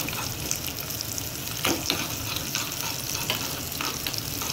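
Tempering for a tadka: mustard seeds and chopped curry leaves sizzling in hot oil, with scattered pops and clicks, while a metal spoon stirs and scrapes against the metal pan. One sharper click stands out about one and a half seconds in.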